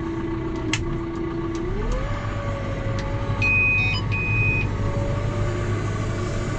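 John Deere tractor engine running steadily, then rising in revs about two seconds in and holding at the higher speed. Two short electronic beeps from the cab terminal sound around the middle.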